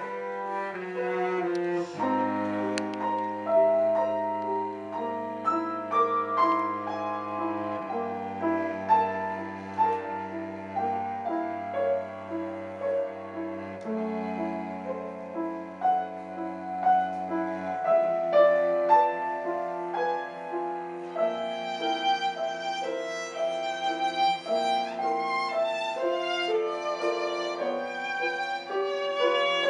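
Piano trio of violin, cello and piano playing slow classical music. Low held notes sound under the piano through the first half, and the violin comes in high with vibrato about twenty seconds in.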